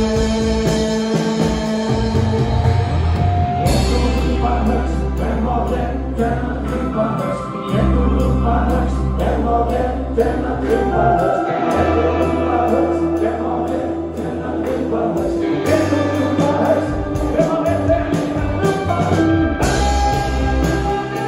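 A live rock band playing with a lead singer: drums, electric guitars and keyboards over long held bass notes.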